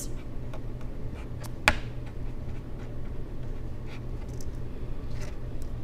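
Felt-tip pen writing on paper, faint light scratching strokes, with one sharp tap about two seconds in. A steady low hum runs underneath.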